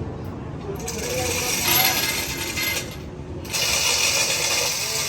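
Hand or power tool working on steel truck axle parts: two spells of rasping, clicking mechanical noise with a short break of about half a second between them.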